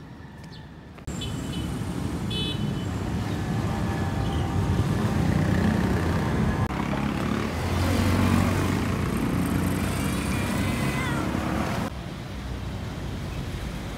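Street traffic: motorcycles and motor tricycles passing with engines running, and a few short horn toots soon after the start. The traffic noise drops sharply near the end.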